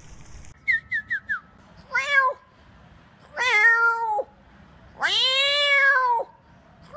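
A man mimicking a cat, meowing three times, each meow longer than the last and arching up and down in pitch. Four quick, high, falling chirps come about a second in.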